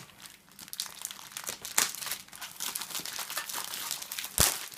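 Trading-card multi-pack packaging being torn open and handled, crinkling and crackling, with a sharp snap near the end.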